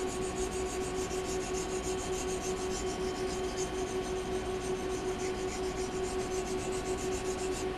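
Steel blade of a Mora knife stroked quickly back and forth on a red oak lapping board charged with abrasive compound and oil, making a fast, even rhythm of gritty scraping rubs that stops near the end.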